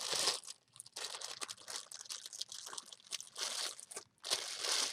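Food packaging being handled, crinkling and rustling in short irregular bursts.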